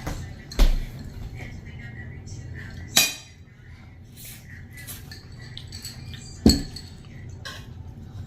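Cutlery clinking and scraping against plates and bowls while eating, with three sharp clinks: about half a second in, around three seconds in with a short ring, and near the end.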